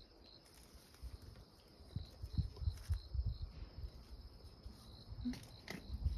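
Quiet outdoor scene: an insect chirping, a short high chirp repeated evenly about three times a second, in stretches. Soft low thumps of steps on gravel come and go beneath it.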